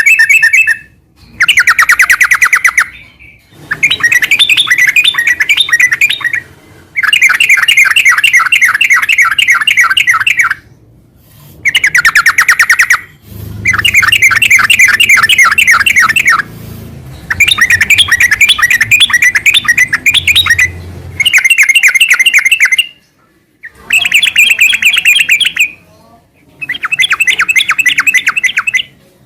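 Yellow-vented bulbul (trucukan) singing loud, rapid chattering phrases, fast strings of notes in bursts of a couple of seconds with short pauses between, about ten in a row.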